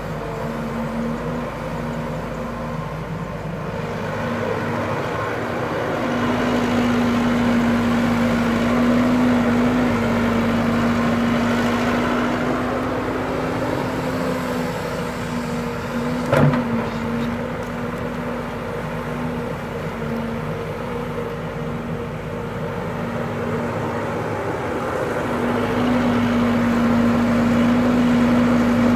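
Caterpillar hydraulic excavator's diesel engine running steadily, louder for a stretch about a quarter of the way in and again near the end, with one sharp knock a little past halfway.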